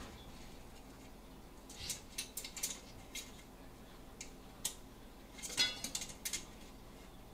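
Light metallic clicks and scrapes of a quince monitor lizard's claws on metal pots and a wire shelf as it clambers behind them. They come in irregular bursts, with the loudest cluster about five and a half seconds in.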